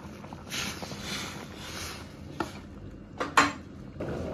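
A plastic spoon stirring pepper powder and water in a steel ladle with a soft scraping, then two sharp clinks of the ladle and utensils against the wok, over soup bubbling in the wok.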